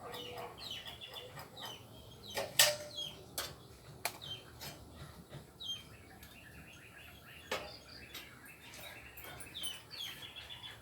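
Small birds chirping over and over in short falling notes, with a few sharp knocks in between, the loudest about two and a half seconds in.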